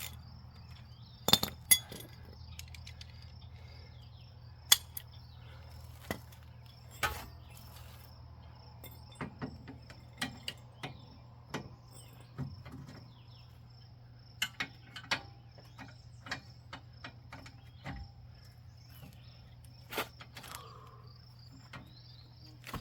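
Irregular metal clicks and clinks from hand wrenches working on a car's rear lower control arm bolt and nut, with crickets chirping steadily throughout.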